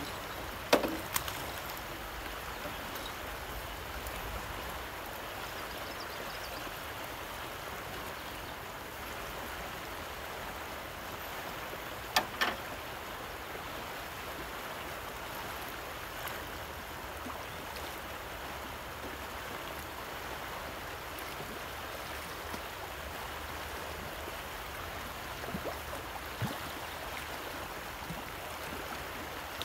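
Steady rush of fast, rough river current, with a sharp click about a second in and another near the middle.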